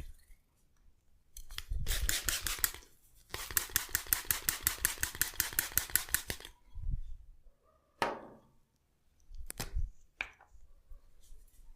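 Hands working over hair and scalp in a head massage: a short rubbing burst, then a fast even run of strokes, about ten a second for some three seconds. It ends in a few single sharp cracks and clicks, typical of hair cracking.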